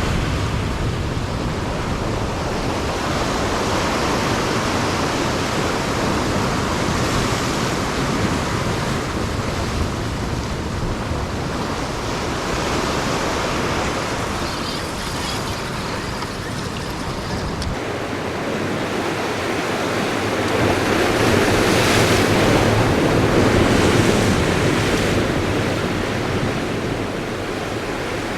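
Ocean surf washing in steadily, with wind on the microphone; the wash swells louder for a few seconds about three-quarters of the way through.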